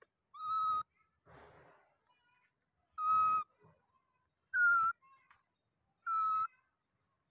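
Baby macaque giving four short, steady-pitched coo calls a second or two apart, with a brief rustle after the first.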